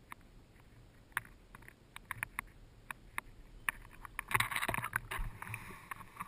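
Small laps and drips of lake water against a camera held at the surface, then from about four seconds in, louder splashing and sloshing from swimming close by.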